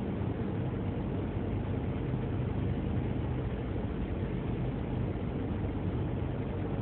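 Toyota Estima AHR10W hybrid running steadily with a whine from the generator inside its transmission, a 'hii' sound like a roasted-sweet-potato vendor's whistle: a fault the car has been driven with for about 50,000 km.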